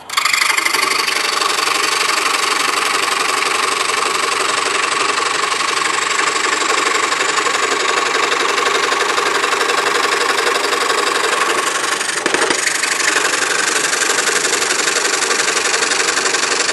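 DeWalt scroll saw switching on abruptly and running steadily, its blade stroking rapidly as it cuts through a stack of glued-together wood pieces, with a brief click about twelve seconds in.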